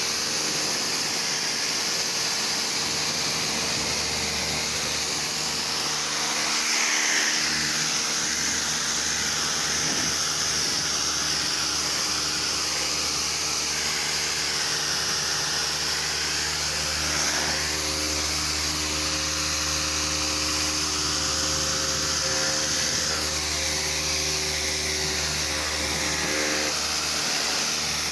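Pressure washer running steadily: its motor and pump hum under the hiss of the high-pressure water spray.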